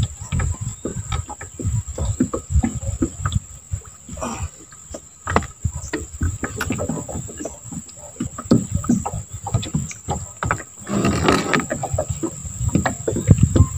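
Irregular low knocks and rustles of handling in a small aluminium boat, with a denser rustle about eleven seconds in. A steady high-pitched insect drone from the riverside runs underneath.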